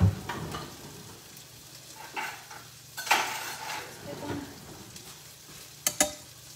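Steak sizzling steadily as it pan-fries. A sharp knock comes right at the start, then utensils clatter in a kitchen drawer, and near the end a metal whisk clicks twice against the skillet.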